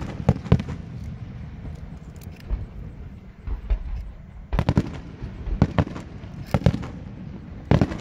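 Aerial firework shells bursting with sharp bangs. Two or three come near the start, then a short lull, then single bangs about a second apart through the second half.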